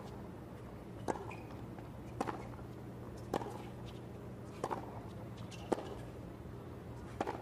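Tennis rally: racket strikes on the ball, a sharp pop about once a second, six in all, with a couple of short high squeaks between them.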